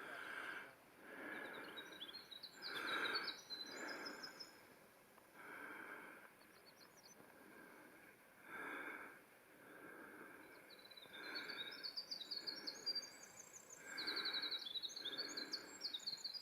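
Faint outdoor ambience with a small songbird singing in quick runs of high notes, which come in short bursts and are busiest in the second half. Under the birdsong there are soft, irregular swishes every second or so.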